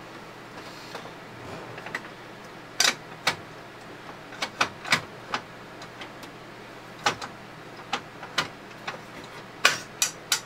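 An IBM PS/2 Model 25 computer being handled and turned on a wooden table: a dozen or so short, sharp knocks and clicks at irregular intervals, several in quick succession near the end.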